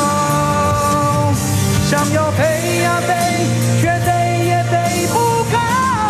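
A man sings a rock ballad live into a microphone over a rock band accompaniment, holding long notes that slide between pitches.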